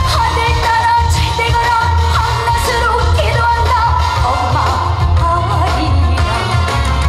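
A woman singing a trot song live over a band accompaniment track with a heavy, steady bass. She holds one long wavering note for about the first two seconds, then moves on through the melody.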